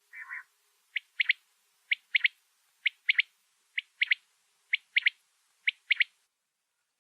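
Female quail (bater) calling: a short, lower note opens, then six rapid three-note phrases follow, each a single note and then a quick double note. The phrases repeat about once a second and stop about a second before the end.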